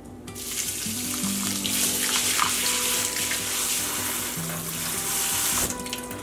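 Kitchen tap running water through a mesh strainer of rice into a stainless steel sink as the rice is rinsed; the flow starts just after the beginning and cuts off near the end. Background music plays underneath.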